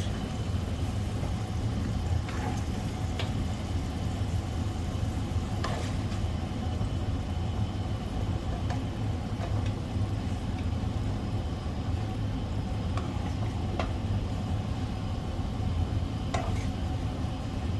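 Soy-based sauce sizzling in a pan on the stove over a steady low rumble, with a few light utensil clicks scattered through.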